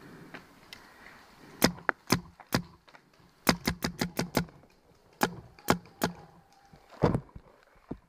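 Planet Eclipse Geo 3 paintball marker firing in sharp pops: three single shots, then a quick string of about six, then three more singles. A duller, heavier knock follows near the end.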